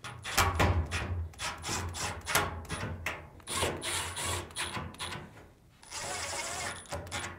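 Screws being driven back into a dryer's front frame with a power screwdriver. The motor runs in short spurts with clicks, then makes a steady whir of about a second near the end.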